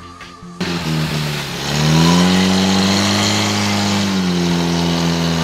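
Portable fire pump's engine running loud and steady, revving up about a second and a half in, holding the higher speed, then easing back slightly about four seconds in, as the pump is brought up to pressure. A moment of music precedes it at the very start.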